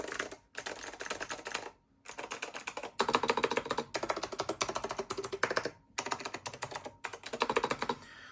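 Typing on a vintage Leading Edge DC 3014 keyboard with blue Alps switches and its stock thick ABS keycaps, the case damped with added foam to cut pinging and rattle: rapid keystrokes in runs of a second or two, broken by short pauses.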